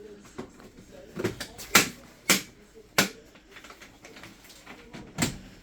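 A few sharp clicks and knocks, about five spread over the stretch, from hands working on a Vaillant ecoTEC plus combi boiler while a replacement circuit board is fitted.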